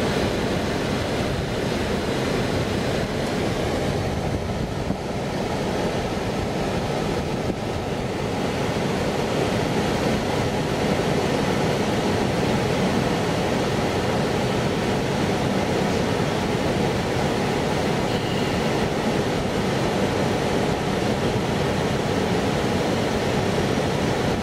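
Electric passenger train passing through a level crossing, a steady rush and rumble of wheels on rail, heard from inside a car.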